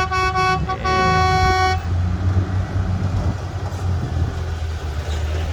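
Dump truck horn tooting in short blasts, the last and longest cutting off about two seconds in, over the truck's diesel engine pulling steadily in second gear as it climbs out of the pit.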